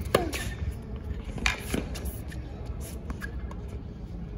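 Tennis rally on a hard court: racket strings striking the ball, with sharp pops at intervals, the nearest player's stroke the loudest just at the start.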